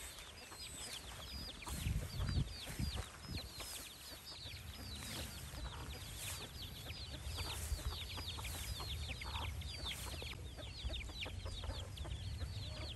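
A brood of chicks peeping continually: many short, high calls, each sliding downward in pitch, overlapping one another, over a low rumble.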